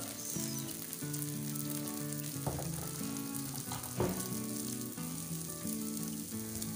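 Maize-flour roti batter sizzling steadily in hot oil in an iron pan as it cooks on its first side, with a few sharp clicks, the loudest about four seconds in.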